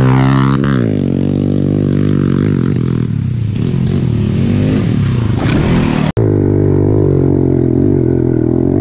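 Kawasaki KLX110 pit bike's single-cylinder four-stroke engine running, its revs falling near the start and then holding steady. The sound cuts out for an instant about six seconds in, after which the engine runs on steadily at a similar pitch.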